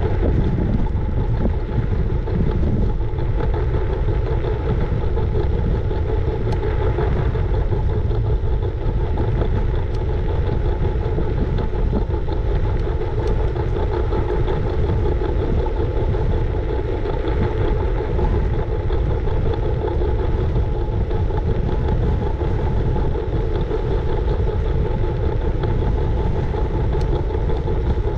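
Wind buffeting and rolling noise from a moving scooter ride, heavy rumble on the action-camera microphone with a steady faint hum over it.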